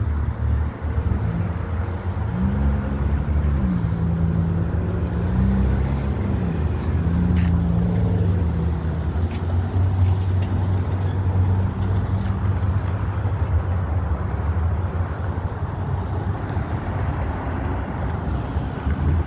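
Road traffic passing: car and truck engines running, one rising and falling in pitch as it speeds up and shifts through the first several seconds, over a steady low rumble.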